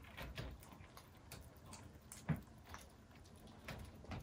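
Several kittens crunching dry kibble from a plate: faint, irregular small crunches and clicks, with one louder knock a little over two seconds in.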